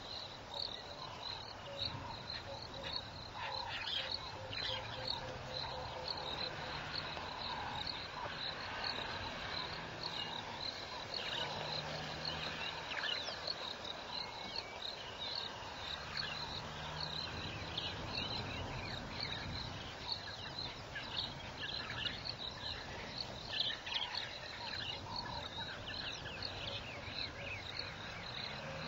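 Insects chirring in a steady run of rapid high pulses, with scattered short chirps and calls of other wildlife over it.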